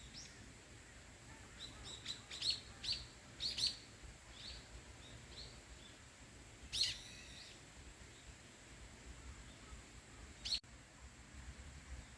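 Small birds chirping: a quick run of short high chirps in the first few seconds, a louder call near the middle and a single chirp near the end, over faint outdoor background noise.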